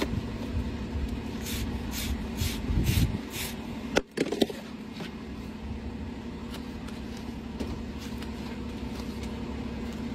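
A farrier's hand tool scraping packed dirt from the sole of a Shire horse's shod rear hoof: about five quick strokes, then two sharp knocks about four seconds in. A steady low hum runs underneath.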